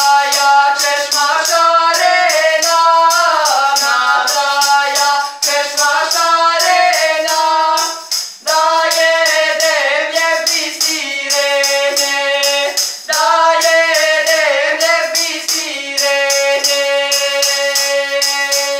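A woman singing a traditional folk song from the Gora region near Prizren, with a steady beat on a hand-held tambourine running under her voice; the singing breaks briefly between phrases while the tambourine keeps going.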